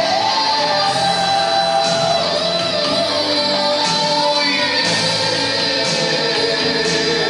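Background music: a song with a singing voice over guitar, playing steadily.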